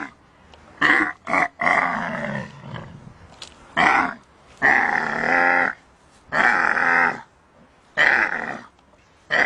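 A camel in labour calling out again and again: about seven loud calls, each up to about a second long, with short gaps between.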